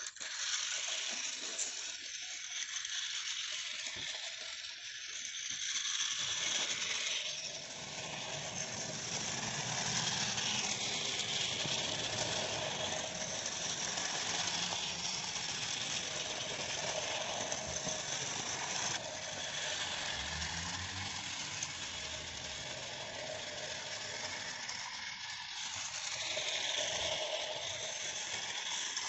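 Battery-powered toy train running on plastic track: the steady whirring rattle of its small motor and gears, with the clatter of its wheels over the track joints.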